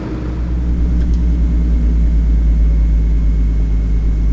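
Avro Shackleton's Rolls-Royce Griffon V12 piston engine running at a steady speed, a deep rumble heard from inside the aircraft's cockpit.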